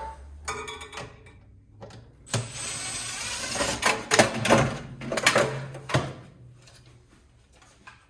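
Parts being stripped off a gas instant water heater's metal body: a few seconds of scraping and rattling with several sharp knocks.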